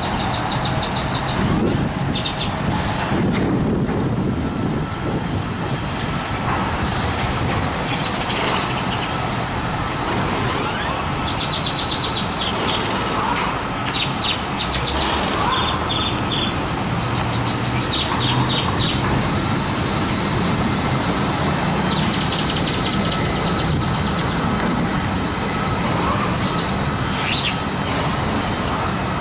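Mark VII ChoiceWash XT in-bay automatic car wash running over a pickup: a steady noise of spraying water and spinning brushes. Clusters of short, high chirps come every few seconds.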